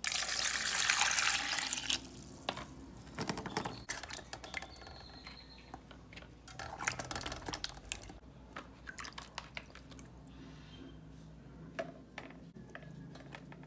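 Water poured from a container onto tomatoes and green chiles in a basin, splashing loudly for about two seconds. Then comes intermittent sloshing, dripping and light knocks as a hand washes the tomatoes in the water.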